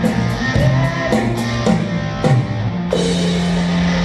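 Live rock band playing guitar, bass and drums, with drum hits until about three seconds in, then a single chord held steady to close the song.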